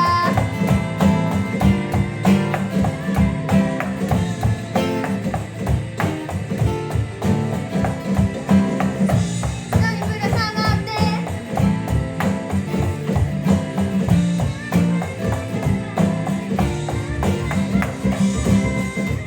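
Drum kit played in time with a recorded J-pop song, with a steady beat of kick, snare and cymbal hits over the track's female vocal and guitar.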